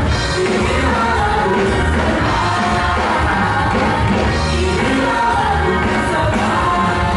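Group of young performers singing over pop-rock band accompaniment, loud and continuous.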